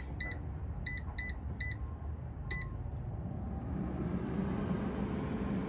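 Digital air fryer's touch panel beeping as its buttons are pressed: five short, high beeps to set the temperature and time. About three seconds in, its fan starts and a low hum rises in pitch as it spins up.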